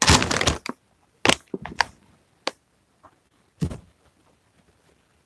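Plastic chip bag crinkling as it is handled: a dense crackling burst at the start, then a few short, separate crackles and clicks spread over the next few seconds.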